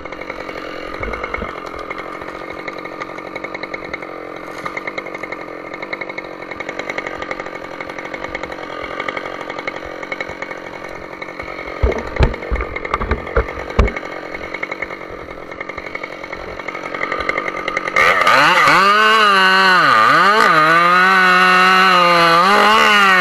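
Husqvarna chainsaw idling, with a few sharp knocks in the middle; near the end it is opened to full throttle and cuts into a spruce trunk, the engine note dipping twice as the chain bites and recovering.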